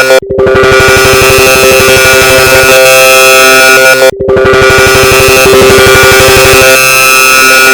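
Telegram notification sound layered on itself a huge number of times, merging into a very loud, dense, distorted drone of many clashing tones. It cuts out briefly twice, just after the start and about four seconds in, then resumes.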